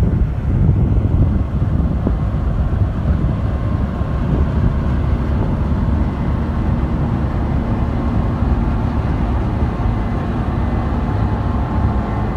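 Case IH Axial-Flow 8250 combine harvester running steadily while harvesting: a loud, dense low rumble, with faint steady whining tones coming in about halfway through.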